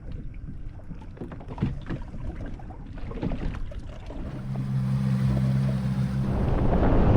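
Scattered knocks and clatter in a fishing boat, then a steady low hum from about four seconds in and a rising rush of noise near the end.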